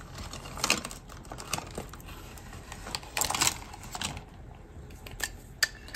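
Pens and crafting tools clicking and clattering against each other as they are picked through in a desk holder and a pen-style craft knife is taken out, with a louder clatter about three seconds in.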